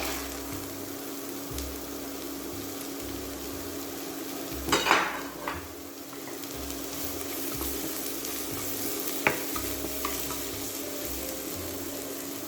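Chopped onion and garlic sizzling in olive oil in a frying pan and being stirred, with a louder clatter of the spoon against the pan about five seconds in and a single sharp tap a little after nine seconds.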